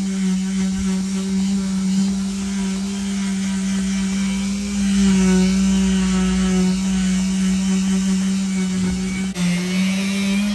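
Festool orbital sander running steadily, its pad pressed against painted wooden fascia board, with a steady hum and a short dip about nine seconds in.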